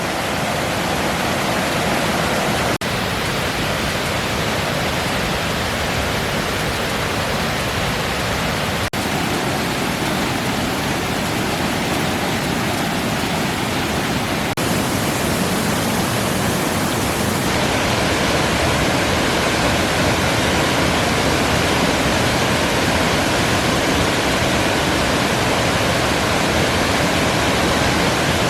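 Waterfall rushing: a steady, dense hiss of falling water that shifts slightly in tone a little over halfway through.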